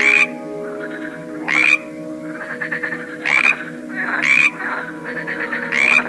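Frogs croaking: five short, loud croaks come about one and a half seconds apart, with softer rattling calls between them. A steady low drone runs underneath.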